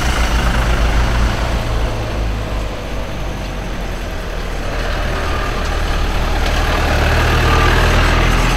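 Engines of passing vans: a camper truck moving off, then a minibus driving up and passing close by. The engine drone swells to its loudest near the end.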